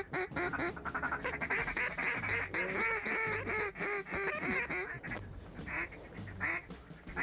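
Duck quacking in fast, dense runs, thinning to a few single quacks near the end.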